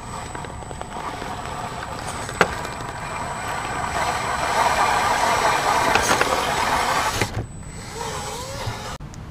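Radio-controlled crawler's 19-turn brushed motor and 10:1 gear reduction unit whining under load as the truck climbs over rocks, growing louder as it passes close, with one sharp knock about two and a half seconds in. The whine cuts off suddenly about seven seconds in.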